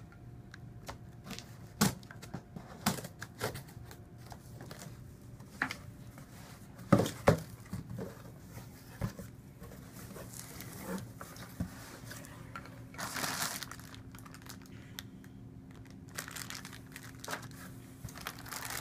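A cardboard shipping box being opened by hand: tape tearing, flaps knocking and scraping, and toward the end a plastic bag in foam packing crinkling. Sharp knocks are scattered throughout, the loudest a pair about seven seconds in.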